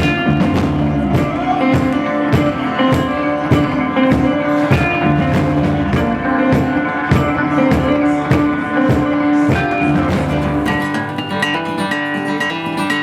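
Guitar strummed over a steady beat from a 'thumper', a reversed stereo speaker stomped as a kick drum, with a pedal-struck tambourine. The beat comes about one and a half times a second, and the deep kick drops out near the end.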